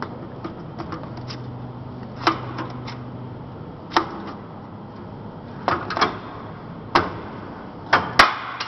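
Corrugated-elbow bending machine at work, giving about seven sharp clacks at uneven intervals, the loudest near the end. A low steady hum runs under the first few seconds.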